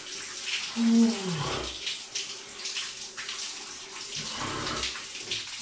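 A shower head spraying water onto a man in a cold shower, pouring and splattering in a tiled cubicle. About a second in, a short voice sound falls in pitch over the water.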